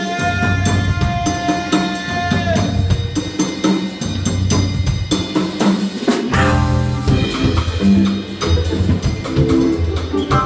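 Live jazz combo of drum kit, upright bass and electric guitar playing, with a male singer holding one long note for the first two and a half seconds before the band carries on alone.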